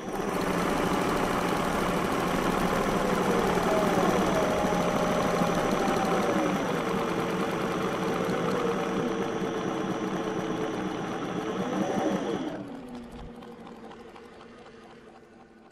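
Engine idling, its pitch rising briefly about four seconds in and again near twelve seconds, then fading out over the last few seconds.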